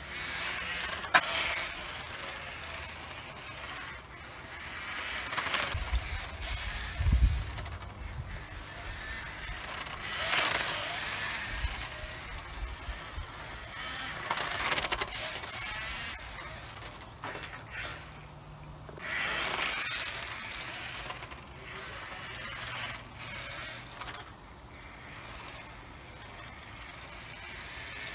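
Small electric RC rally car's motor whining and its tyres squealing on asphalt, swelling and fading several times as it drives past close by.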